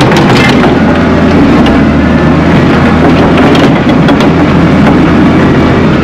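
Compact track loader (tracked skid steer) engine running steadily under load, heard from inside the cab while it grades dirt, with a few scattered clicks over the steady engine sound.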